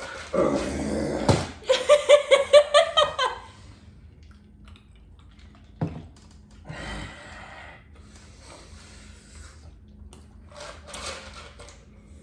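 A person's laughter: a loud breathy outburst, then a quick run of about nine ha-ha pulses that dies away after a couple of seconds. Later come quieter breaths and one sharp click.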